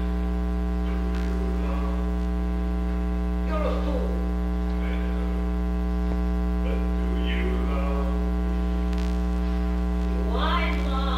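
Loud, steady electrical mains hum with its overtones, running without change. Faint snatches of film dialogue from the projected clip come through underneath it now and then.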